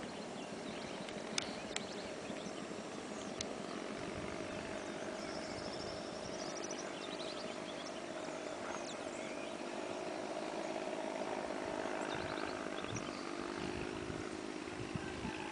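A steady engine drone whose pitch wavers slightly, with a few faint sharp clicks in the first few seconds and some faint high chirps over it.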